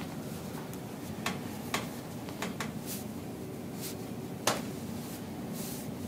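Scattered light clicks and taps over a steady room hum, about seven in all, the sharpest about four and a half seconds in.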